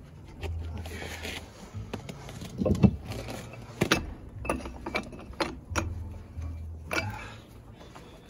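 Sharp metal clanks and clicks as a U-joint puller is fitted onto a semi truck's driveshaft U-joint yoke: about half a dozen separate knocks, the loudest about three seconds in, over a low hum that comes and goes.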